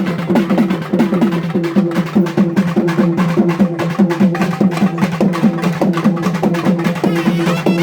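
Tamil folk dance music for kummi and sami aattam: a fast, even drum beat of about four to five strokes a second under a held melodic tone.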